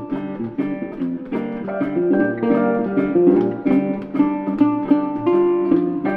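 Background music: acoustic guitar picking and strumming.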